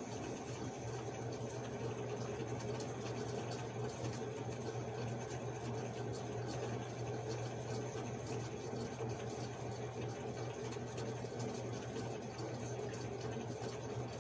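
Steady low hum with an even hiss, unchanging throughout: continuous background machine noise.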